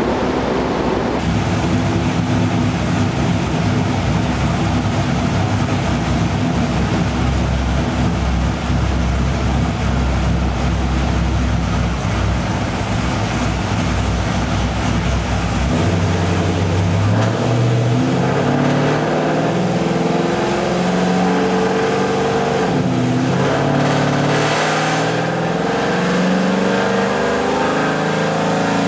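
A 5.7-litre LS1 V8 with a G5X4 camshaft runs on a chassis dyno through long-tube headers, with the dyno's cooling fan blowing. About 16 seconds in, the engine note changes and climbs and falls in steps as the engine speed changes.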